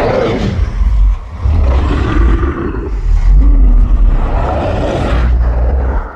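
Loud, low, growling dinosaur roar sound effect, rumbling on with a few swells and cutting off suddenly near the end.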